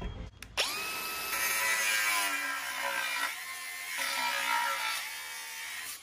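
Milwaukee Fuel cordless angle grinder spinning up about half a second in and cutting a slit along the crack in an aluminium alloy wheel rim. A steady high motor whine carries grinding noise throughout, and the grinder winds down at the end.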